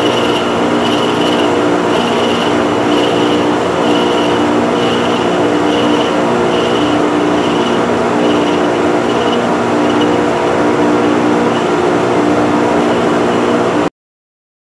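Metal lathe running steadily while its tool bit turns a taper on a spinning wooden dowel, with a high tone pulsing about twice a second over the machine's steady hum. The sound cuts off abruptly near the end.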